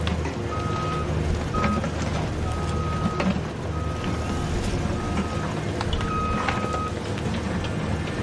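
A vehicle's reversing beeper sounding a single steady tone, on and off in beeps of uneven length, over a low engine rumble, with scattered light clicks.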